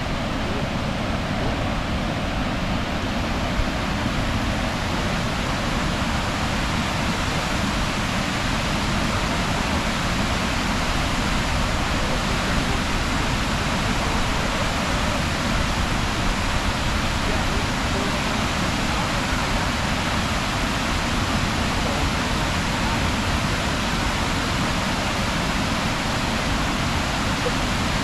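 Waterfall pouring steadily: a continuous, even rush of falling water.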